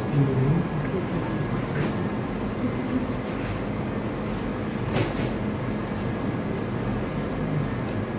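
Steady background hum and rumble of an operating theatre's ventilation and equipment, with a single sharp click about five seconds in.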